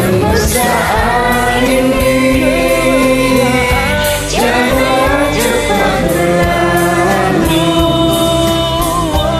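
Several voices singing long held notes of an Indonesian pop ballad together over a karaoke backing track.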